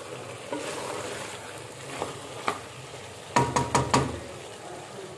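Chicken keema and potato cubes sizzling in an aluminium pressure cooker pot while a wooden spatula stirs them, scraping and knocking against the pot. A quick run of four knocks comes about three and a half seconds in.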